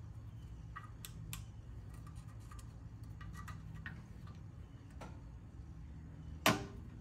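Small sharp metal ticks and scrapes of a flat screwdriver prying a stuck old drain-plug gasket off the oil pan, scattered and faint, with one louder click near the end.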